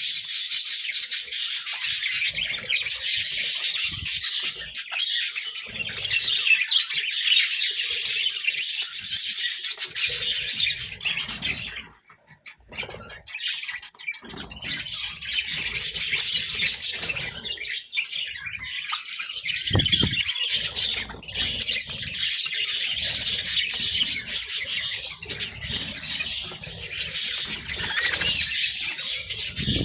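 A group of budgerigars chattering and chirping continuously, with a brief lull about twelve seconds in. A short low thump comes about two-thirds of the way through.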